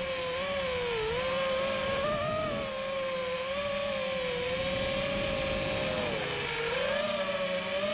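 FPV racing quadcopter's electric motors and propellers whining steadily, the pitch rising and falling a little with the throttle and dipping about a second in and again after about six seconds.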